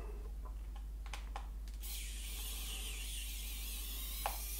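A precision screwdriver turning tiny screws out of a camcorder's casing: a few faint clicks, then from about two seconds in a steady high hiss, with one sharper click near the end.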